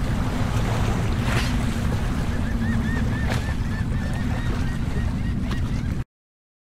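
Seaside ambience: wind buffeting the microphone over the wash of waves, with a steady low hum and a faint wavering high tone in the middle. It cuts off abruptly about six seconds in.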